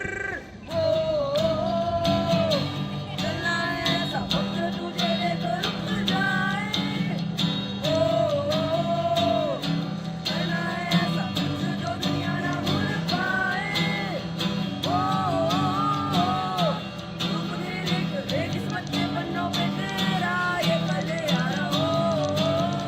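Students singing a song of their own composition, with a sung melody in phrases over a steady instrumental accompaniment.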